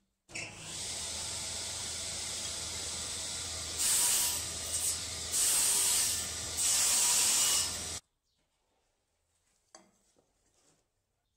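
Saw of a woodworking machine running with a steady hum and hiss, growing louder three times as thin wooden strips are cut. It stops abruptly after about eight seconds, followed by a few faint handling clicks.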